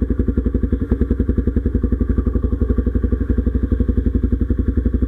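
Motor scooter engine running at low speed, an even rapid pulsing of about ten beats a second, with a single light click about a second in.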